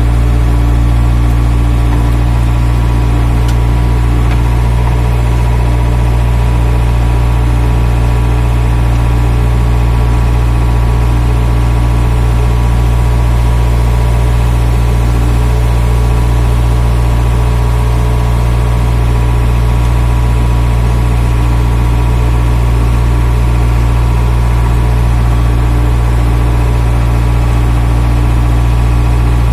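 A JCB backhoe loader's diesel engine running steadily as the machine drives slowly, heard from inside the cab: a constant, loud low drone that does not change in pitch.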